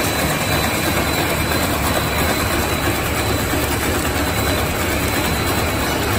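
Core-filling puffed snack extruder machine running: a loud, steady mechanical noise with a low motor hum and a faint, steady high whine.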